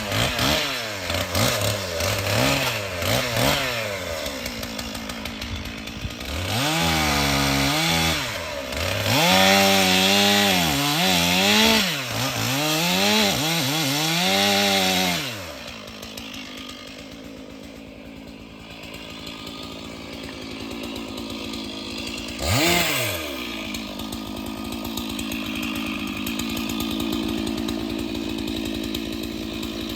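Stihl two-stroke chainsaw revving up and falling back again and again, then running lower and steadier, with one quick rev about 23 seconds in.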